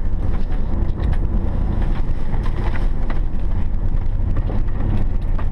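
Car driving along, with a steady low rumble of engine and road noise.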